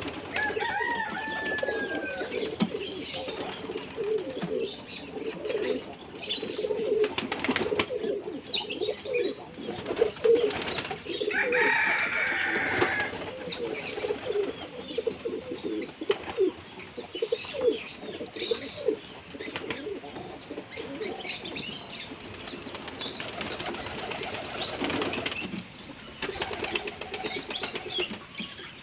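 Flock of domestic pigeons cooing over and over, with wings flapping now and then as birds take off and land.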